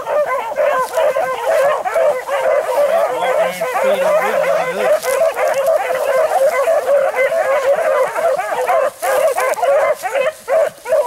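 A pack of rabbit hounds baying together without a break, several dogs' voices overlapping, as they run a rabbit's scent trail.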